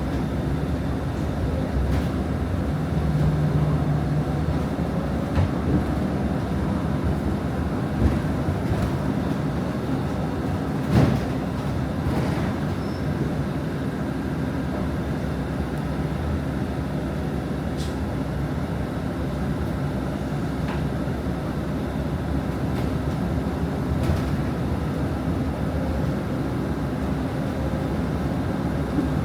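Interior noise of a city bus on the move: a steady engine and road rumble, with a few short knocks and rattles, the loudest around 8 and 11 seconds in.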